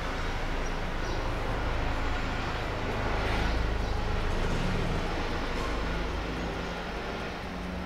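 Helicopter flying overhead: a steady low rotor and engine drone that swells about halfway through and eases off near the end.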